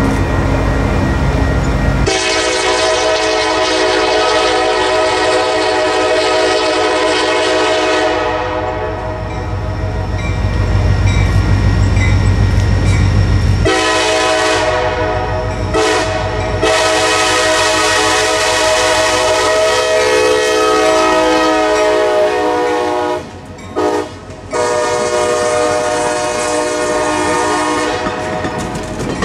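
Diesel locomotive's multi-chime air horn sounding as the train approaches: a long blast, a pause filled by the engine's low rumble, then a longer blast broken by two quick gaps near the end. Near the end the passenger cars roll close by, wheels clicking over the rail joints.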